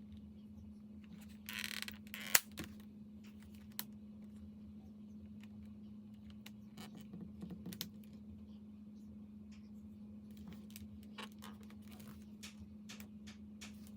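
Scattered light clicks and taps of a backlit keyboard being handled, with a brief rustle about a second and a half in and a sharper click just after it, over a steady low hum.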